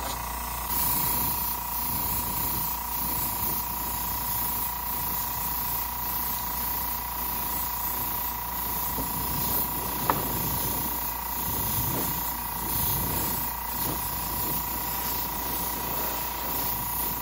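Airbrush spraying paint in a steady hiss that starts about a second in, with a short sharp click about ten seconds in.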